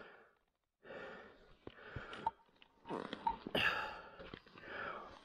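A rider breathing hard and raggedly, roughly one breath a second, close to a helmet microphone, with a few clicks and scuffs of riding gear as he climbs off the motorcycle.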